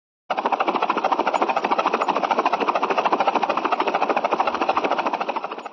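Cartoon vehicle sound effect: a rapid, even pulsing that starts suddenly a moment in, holds steady, and cuts off near the end.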